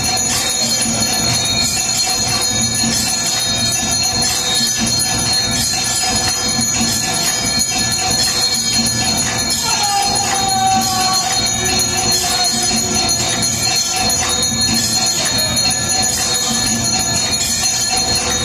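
Temple bells and jingling metal ringing continuously during an aarti, a loud, dense clanging din with a steady pulsing beat underneath. About ten seconds in, a long held tone slides down in pitch.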